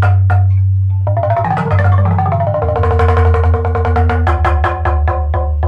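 Live improvised percussion music: struck pitched notes repeating evenly about five a second, with a denser flurry of notes about a second in, over a sustained low bass tone that changes pitch a couple of times.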